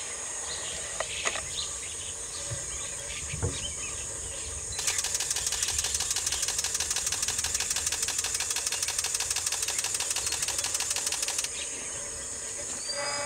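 Steady high-pitched insect chorus in the background. A loud, rapid insect trill, about ten pulses a second, starts about five seconds in and cuts off suddenly some seven seconds later.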